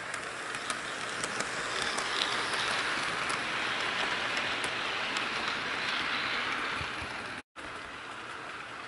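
HO scale Santa Fe diesel and freight cars running past on sectional track, a rushing rolling noise with scattered light clicks that swells as the train nears and passes. Near the end it breaks off for a moment, then comes back quieter.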